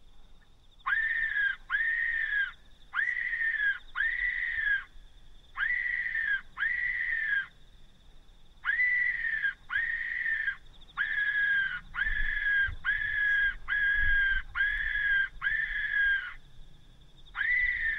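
Electronic predator caller playing a squealing distress call to lure foxes: short, identical high-pitched cries, each rising quickly and then dipping slightly, in four pairs and then a quick run of six.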